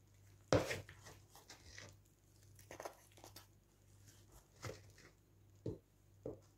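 A plastic scoop digging into loose potting soil and tipping it into a plant pot: about five short scraping, rustling scoops, the loudest about half a second in.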